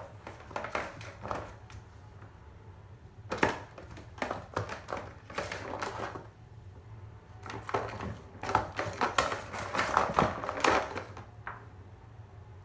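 A Bengal kitten's paws and claws clattering and scratching on a cardboard scratcher with a plastic ring track, in irregular bursts of clicks and rasps.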